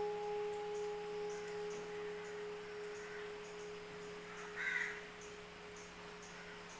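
A bell-metal urli, a wide bronze vessel, ringing on after being struck to test its tone. It holds a steady pure low note with a higher overtone; the overtone dies away about two and a half seconds in, and the low note keeps slowly fading. A short, higher-pitched sound comes about four and a half seconds in.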